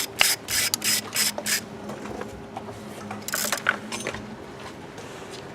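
Quick bursts of mechanical clicking and rattling from hand tools and parts being worked on the engine: about five in the first second and a half, then another short run about three and a half seconds in, over a faint steady hum.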